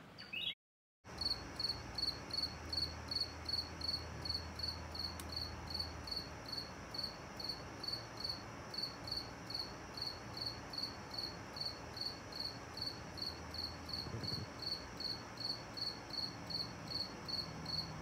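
A cricket chirping steadily in a high, even pulse, about three chirps a second. The sound drops out briefly about half a second in, then the chirping runs on unchanged.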